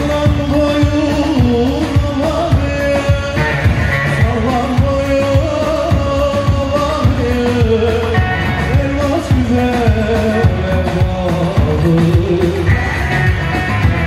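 Live Turkish wedding band music: a singer over an amplified long-necked bağlama and a steady drum beat.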